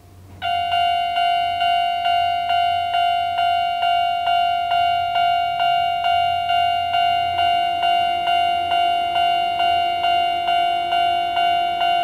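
Japanese railway level-crossing alarm switching on about half a second in: the older standard electronic bell sound, a ringing ding repeated about two and a half times a second, warning that a train is approaching and the barriers are coming down.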